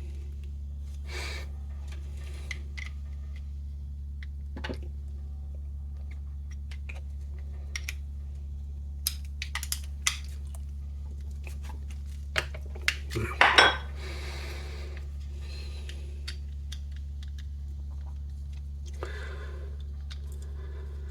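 Scattered small clicks and taps of a Ford Transit key fob's plastic parts being handled and pressed together, with the loudest cluster about thirteen seconds in. A steady low hum runs underneath.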